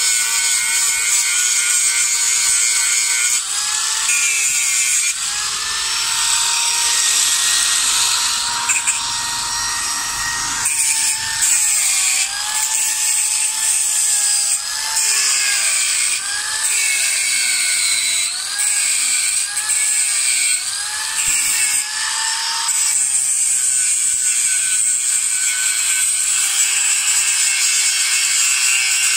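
Handheld electric angle grinder grinding steel square tubing: a steady high motor whine over a harsh grinding hiss. Through the middle stretch the whine dips and recovers over and over, each time the disc is pressed harder into the metal.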